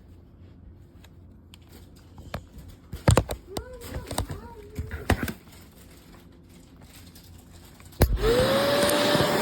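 Clicks and knocks of plastic parts being handled, then about eight seconds in a switch clicks and the Shark NV360 upright vacuum's motor starts: a whine that rises quickly and holds steady over a loud rush of air.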